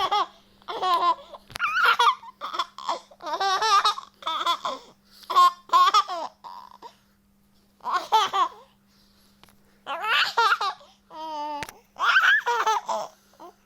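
A baby laughing hard in a string of high-pitched, wavering bursts with short breaths between them, and a longer pause about two thirds of the way through.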